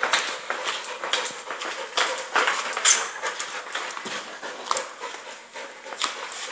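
Dog panting hard, a quick run of short, breathy puffs.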